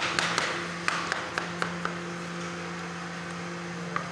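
Kitchen knife chopping cucumber on a plastic cutting board: quick knocks of the blade on the board, about four a second, stopping about two seconds in. A steady low hum runs underneath.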